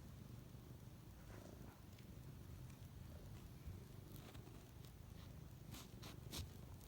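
A cat purring faintly, a low, uneven rumble, with a few faint ticks in the second half.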